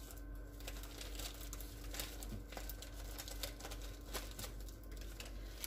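Plastic bag of brown sugar crinkling and rustling in gloved hands as it is picked up and opened: faint, scattered small crackles. A low steady hum runs underneath.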